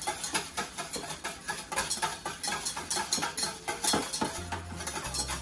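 Wire whisk beating a whole egg in a stainless steel bowl, its wires clinking quickly and evenly against the metal, about five or six strokes a second.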